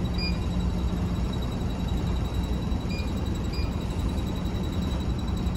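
Steady low engine rumble of the ferry, with three short electronic beeps from a food vending machine's keypad: one near the start and two close together about three seconds in.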